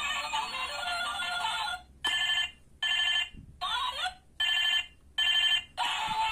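Hello Kitty toy mobile phone playing an electronic tune, which breaks off about two seconds in for its electronic ringtone: five short ring bursts of about half a second each with brief silences between, the middle one sliding in pitch. The tune starts again near the end, the toy switched between sounds by its keypad buttons.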